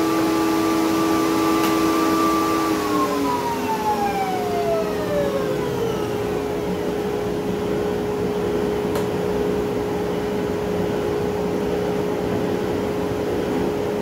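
Bosch router in a router table whining at full speed, then switched off about three seconds in and winding down, its pitch falling over the next few seconds. A steady machine hum carries on underneath throughout.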